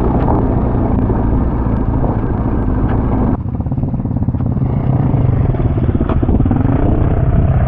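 BMW R 1250 GS motorcycle's boxer-twin engine running steadily under way, heard from on the bike. The sound changes abruptly about three and a half seconds in, then the engine note carries on.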